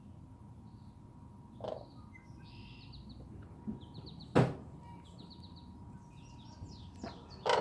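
Small birds chirping in short runs of quick, high repeated notes, several times over. A single sharp knock about four and a half seconds in is the loudest sound, with a softer thump a couple of seconds earlier.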